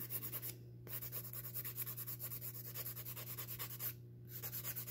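Hand nail file scraping back and forth across a fingernail in quick strokes, several a second, with two brief pauses, about half a second in and near four seconds.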